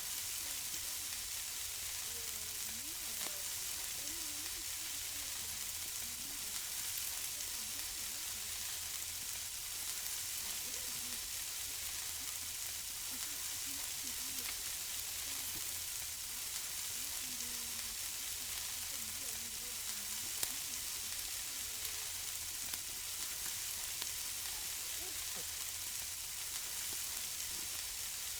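Food sizzling on a barbecue grill: a steady hiss with light crackling and occasional pops.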